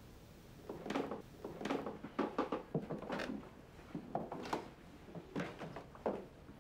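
A string of irregular light knocks and creaks on wood, a few each second.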